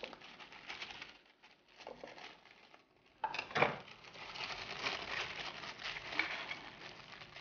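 Sandwich paper rustling and crinkling as it is folded around a grilled tortilla wrap on a plate, with a few light knocks; the rustling is sparse at first and becomes nearly continuous after about three seconds.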